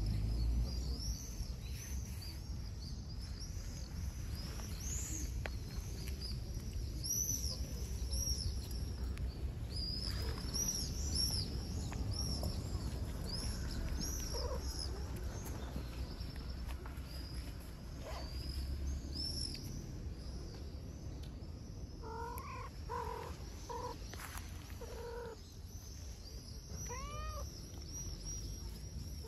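A ginger-and-white cat meowing: a run of short calls about three-quarters of the way through, then one longer meow that rises and falls near the end. High bird chirps repeat throughout over a low steady rumble.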